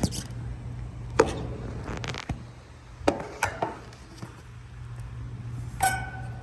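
Camera being set in place on a metal air conditioner cabinet: a handful of knocks and clicks, the last near the end with a short metallic ring, over a steady low hum.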